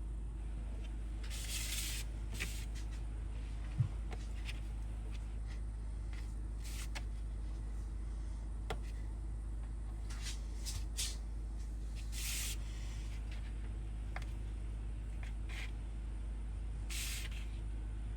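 A knife slicing peeled hard-boiled eggs in half on a board: short, scattered scraping swishes, about seven over the stretch, with a sharp knock about four seconds in. A steady low hum runs underneath.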